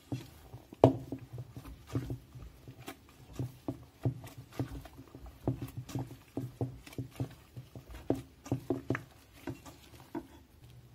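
Wheat-flour bread dough with oil worked into it, kneaded by gloved hands in a stainless-steel bowl: irregular wet slaps and squelches, a few each second, the loudest about a second in.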